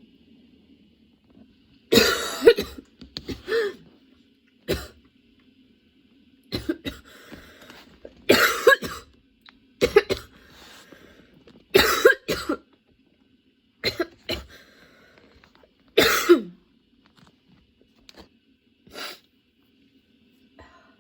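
A woman coughing over and over in a long, persistent coughing fit, a harsh burst of coughs roughly every two seconds.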